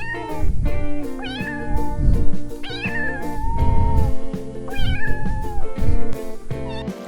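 A cat meowing again and again, about four drawn-out meows that rise and then hold, over background music with a steady beat.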